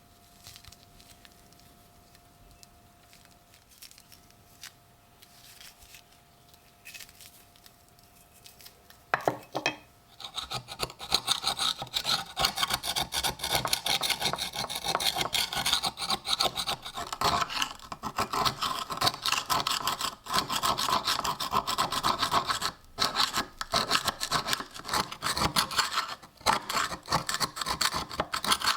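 Rusty steel of a pocket knife being scraped with rapid rasping strokes, starting about nine seconds in with a few brief pauses. Before that, only a faint steady tone and a few light ticks.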